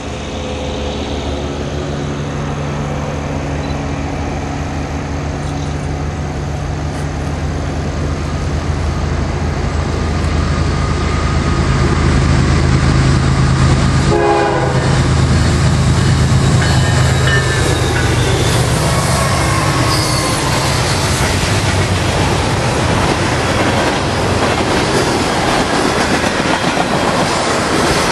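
Diesel locomotives hauling a freight train of ethanol tank cars: the engines' steady drone grows louder as they approach and passes by about halfway through. The tank cars then roll past with a continuous wheel rumble and clatter, with high wheel squeals in the second half.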